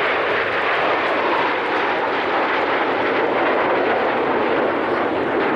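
Formation of Aermacchi MB-339 jet trainers, each with a single Rolls-Royce Viper turbojet, passing overhead: a steady rushing jet engine noise.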